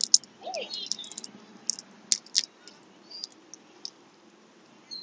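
Boiled crawfish shells cracking and snapping as they are peeled by gloved hands: a string of sharp, irregular clicks.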